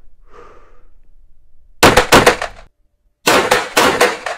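Canik TP9 SFX Mete 9mm pistol fired as two quick double-taps, each pair of shots echoing off the walls of an indoor range; the second pair comes about a second and a half after the first.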